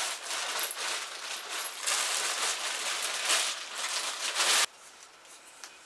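Plastic packing wrap crinkling and rustling as it is pulled off metal bed-frame pieces, with an irregular crackle that cuts off abruptly about four and a half seconds in.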